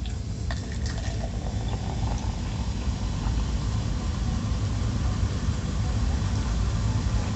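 Soda poured from a can into a plastic cup, the fizzing and splashing growing gradually louder, over a steady low rumble. A few light clicks near the start.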